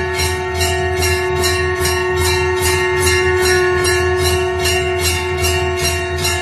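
Elephant bell ringing in an even rhythm, struck about two and a half times a second, its tone ringing on between strikes over a low steady hum.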